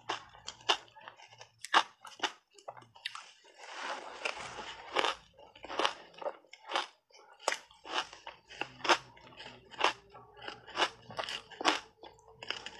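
Crunchy shaved ice dusted in heavy matcha powder being bitten and chewed close to a clip-on microphone: sharp, irregular crunches, with a denser run of crunching about three to five seconds in.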